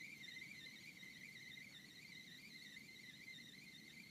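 Faint, continuous high trill of insects, most likely crickets, wavering slightly in pitch, over a faint low background noise.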